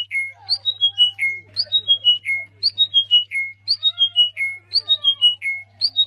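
A songbird singing a short phrase of clear whistled notes that step down in pitch, a high note followed by lower steps and a low final note, repeated about once a second.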